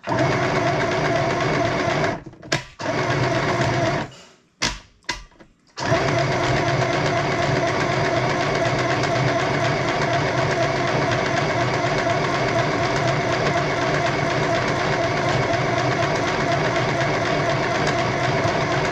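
Small electric mini sewing machine stitching through fabric with a steady motor hum. It runs about two seconds, stops, gives a few short spurts, then runs continuously from about six seconds in.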